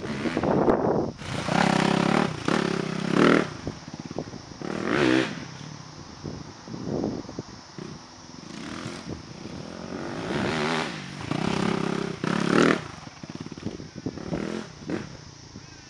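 Suzuki RM-Z250 four-stroke single-cylinder motocross bike being ridden over dirt jumps, its engine revving up in about eight hard throttle bursts and dropping back in between.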